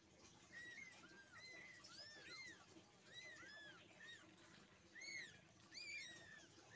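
Newborn kittens mewing: many short, high cries, each rising and falling in pitch, about two a second and sometimes overlapping, faint.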